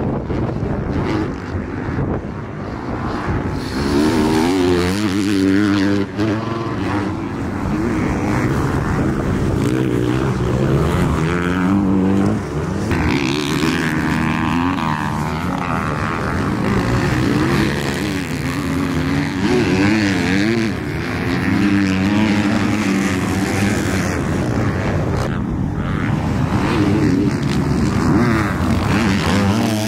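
Motocross dirt bike engines revving hard and falling off over and over as riders ride and jump a dirt track, the engine pitch rising and dropping through gear changes and jumps. Several bikes are heard in turn.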